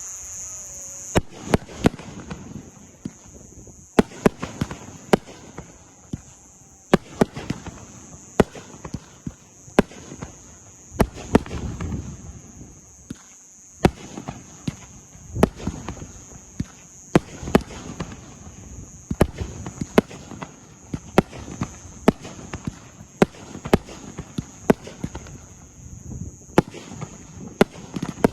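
Fireworks display: a string of sharp bangs from bursting fireworks at irregular intervals, often several a second, each trailing off in a low rumble, over a steady high-pitched whine.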